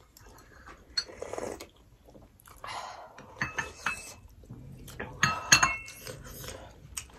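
Ceramic bowls and a spoon clinking against dishes on the table, with slurps of mutton leg soup sipped from a bowl. The loudest is a ringing clink about five and a half seconds in.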